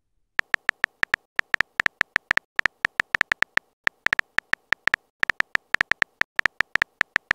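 Simulated phone-keyboard typing sound effect: a quick run of short clicking ticks, one per letter, about five or six a second, broken by a couple of brief pauses.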